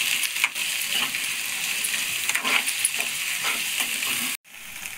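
Chirraku greens and egg sizzling in a metal kadai while a spatula stirs and scrapes through them. The sound cuts off abruptly near the end.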